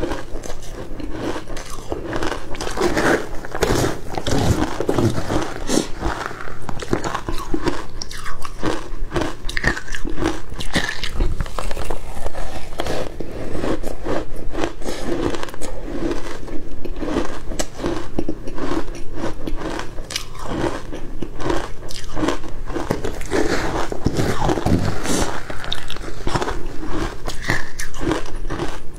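Matcha-dusted crushed ice being bitten and chewed right at a clip-on microphone: a dense, continuous run of sharp crunches and cracks, mouthful after mouthful.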